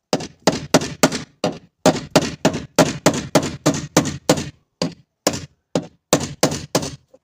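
A flat-head screwdriver struck again and again, about three blows a second with two short pauses, to break out the rivet holding a door subwoofer in its frame.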